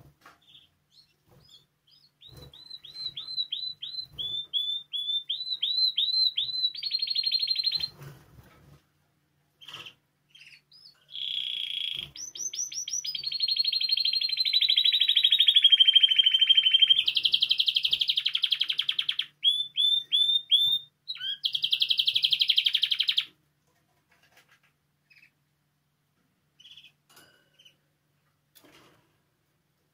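Spanish timbrado canary singing: a run of quick repeated notes, then, after a short pause, a long phrase of rolling trills that stops about two-thirds of the way through, followed by a few faint chips.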